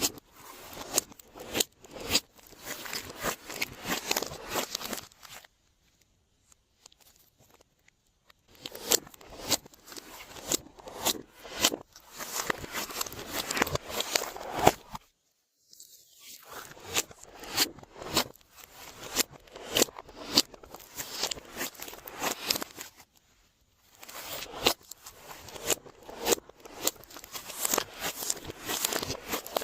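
Glossy slime being squished and kneaded by hand: stretches of sticky crackling with many sharp pops, broken by a few short pauses.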